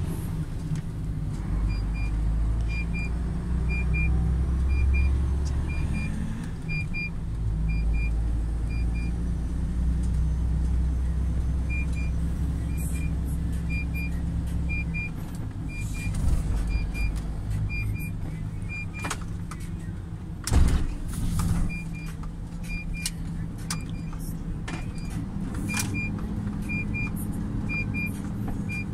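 Truck's diesel engine running inside the cab as it moves slowly, with its low drone easing off after about fifteen seconds. A high electronic ticking repeats about every 0.6 s throughout, pausing for a couple of seconds around ten seconds in. A loud short burst of noise comes about twenty seconds in.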